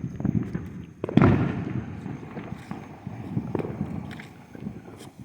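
A consumer firework going off: one sudden loud bang about a second in that trails away over the following second.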